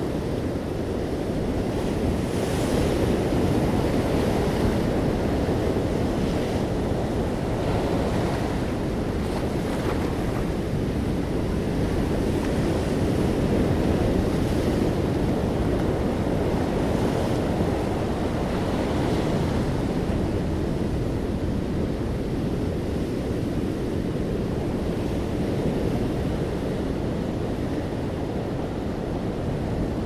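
Atlantic surf breaking offshore and washing up a sand-and-pebble beach: a continuous rush, with the hiss of the wash swelling every few seconds as each wave runs in.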